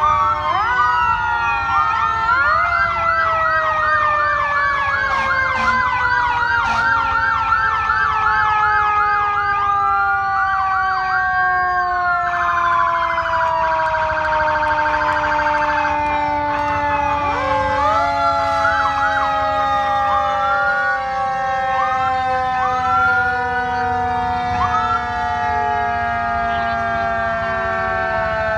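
Sirens of police cars and fire engines sounding together, with several electronic wails and rapid yelps overlapping, and one long tone slowly falling in pitch throughout.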